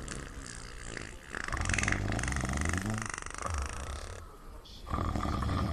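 Loud, rough snoring: one long snore from about a second and a half in, lasting nearly three seconds, and another starting near the end.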